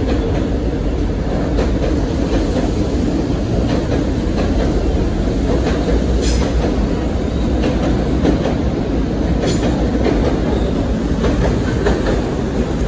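Electric commuter train running, heard from inside the carriage: a steady rumble of wheels on rail, with a few sharp clicks from the wheels passing over the track.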